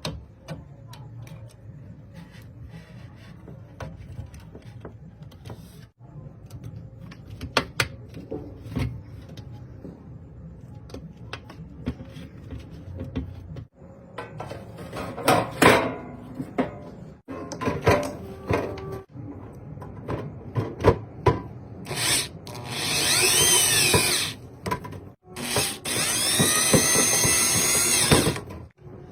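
Tools clicking and clattering against a machine during a repair. Near the end a small hand-held power tool, such as a drill or driver, whirs in two loud runs, its pitch rising and falling as the motor speeds up and slows down.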